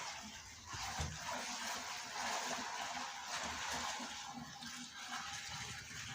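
Water running or pouring, an uneven rushing hiss.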